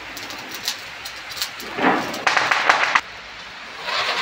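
Diwali sparklers fizzing with small crackles, then a louder hissing, crackling spray of sparks that cuts off abruptly. Near the end a ground firework starts hissing as it sprays sparks.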